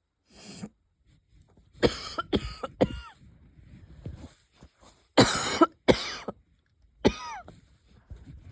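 A person's light, wheezy coughs in three short bouts, the loudest pair about five seconds in, some trailing off in a falling pitched squeak. The uploader puts the cough down to either a coming cold or an asthma flare-up.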